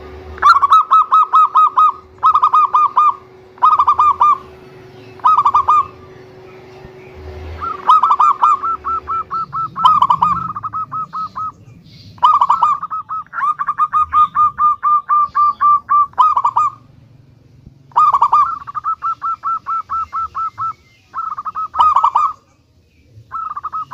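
Zebra dove (perkutut) cooing: about ten runs of fast staccato notes, all at the same pitch. Some runs are brief bursts, others go on for several seconds.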